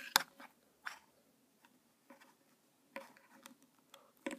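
Small plastic figure being handled and fitted together by hand: a few light clicks and taps of hard plastic, two close together at the start and a small cluster about three seconds in.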